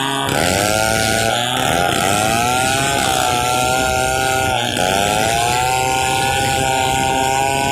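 Stihl 070 two-stroke chainsaw running under load while ripping a pule log into boards, its engine pitch dipping and recovering several times as it bogs in the cut.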